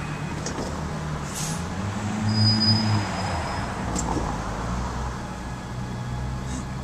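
Street traffic: road vehicles' engines running and passing, with the low rumble swelling briefly about two seconds in. A thin high whine sounds for about a second during that swell.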